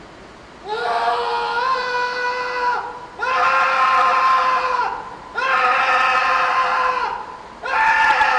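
A man screaming: four long, held cries of about two seconds each, each at a steady high pitch, with short breaths between them.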